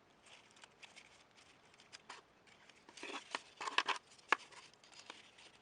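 Paper and cardboard being handled during gluing: soft rustling and scraping, with a few short clicks about three to four seconds in and one sharper click just after.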